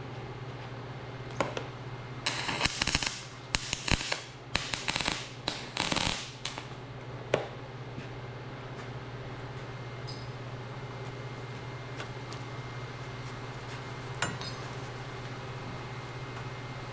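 Arc welding on rusty, painted steel, heard as four short bursts of crackling and spattering in the first half, which is the sign of a dirty weld surface. A steady low hum follows after that.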